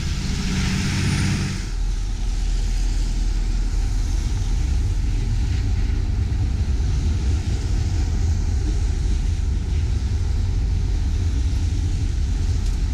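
A city bus pulls away close by in the first couple of seconds, then a freight train hauled by diesel locomotives crosses the rail bridge overhead: a steady deep rumble with road traffic hissing past underneath.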